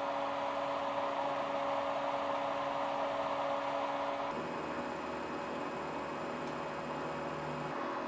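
Steady hum and whir of small heat-powered stove fans, whose thermoelectric base turns the sand's heat into electricity for their motors, running on the hot sand. The tones shift about four seconds in.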